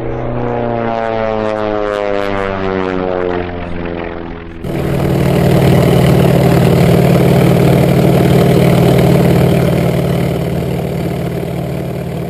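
Electric motor and propeller of a Durafly Brewster Buffalo RC foam warbird. It first flies past with its whine falling in pitch. About five seconds in the sound switches abruptly to the onboard camera, which picks up a louder, steady motor and propeller drone mixed with rushing air.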